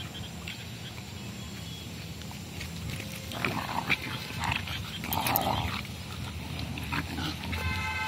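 Two dogs, a German Shepherd pup and a pit bull, play-fighting: a run of short growls and yelps starts about three seconds in, with a short pitched whine near the end, over a low steady hum.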